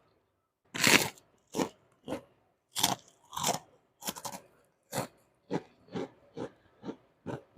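A person chewing a mouthful of rice and stir-fried papaya flowers close to the microphone, with a steady run of crunching chews about two a second beginning about a second in.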